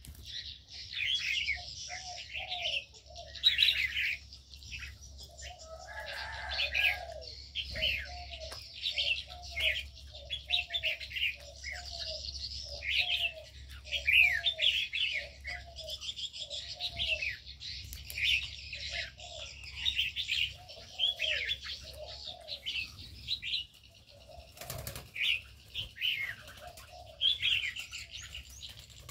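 Many birds chirping and chattering in quick high notes, over a dove cooing in a steady series of low notes. A brief flutter of wings about 25 seconds in.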